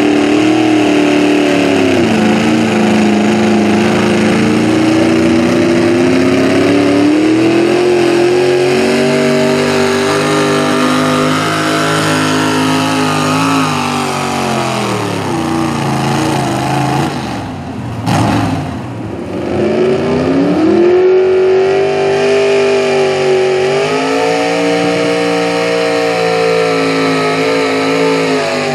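V8 hot rod pulling tractor engines running hard at high revs under load while pulling the sled. The first engine's pitch falls as it winds down a little past halfway, and after a brief dip a second tractor's V8 revs up and holds high.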